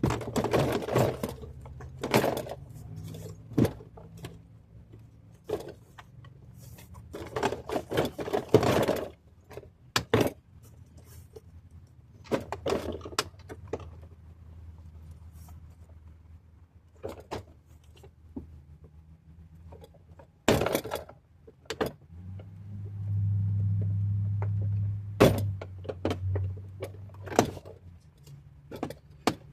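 Scattered clicks, knocks and rattles of hands fitting parts inside a car door, with rattly clusters at several points. A steady low hum joins in for about four seconds near the end.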